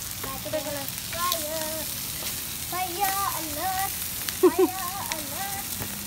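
Chicken on foil over open flames in a round barbecue grill, sizzling steadily with scattered sharp crackles from the fire. A person's voice comes and goes over it, loudest about four and a half seconds in.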